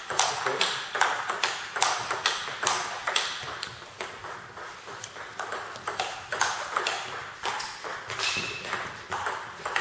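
Table tennis ball clicking back and forth off the bats and table in quick rallies, with a short gap between points midway. A brief high squeak is heard about eight seconds in.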